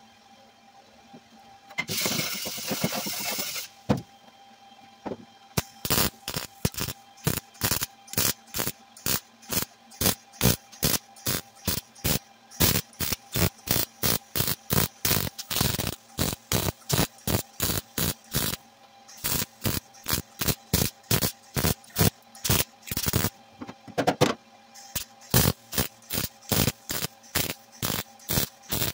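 MIG welder tacking a steel patch panel into a rusted car floor pan. First one longer weld of about a second and a half, then after a short pause a long run of short welding bursts, about three a second, broken by brief stops.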